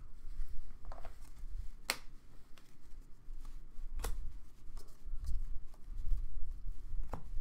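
Trading cards handled by hand: cards rustling and sliding against each other as a stack is leafed through, with three sharp clicks spread across the stretch.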